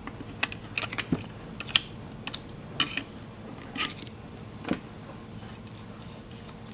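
Scattered small metallic clicks and clinks of hand tools (a homemade hook tool, an Allen wrench and a small screwdriver) working on a Harley-Davidson Twin Cam inner cam chain tensioner as its spring is held under tension. The clicks come irregularly and die away after about five seconds.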